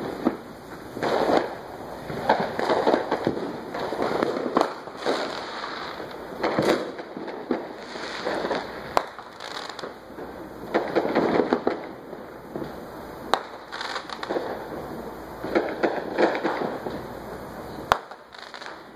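Fireworks going off: many sharp bangs, with bursts of crackling between them, irregularly throughout.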